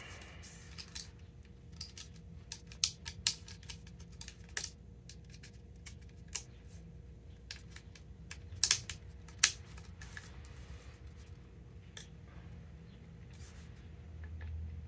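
Irregular sharp plastic clicks and snaps as the pegs of a grommet strip are worked through the string holes of a tennis racquet frame, the loudest few coming together a little past halfway.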